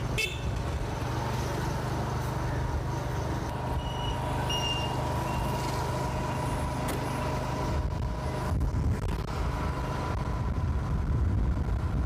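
Motorbike engine running steadily on the move, with road rumble and passing town traffic. A few short high beeps sound about four to five seconds in.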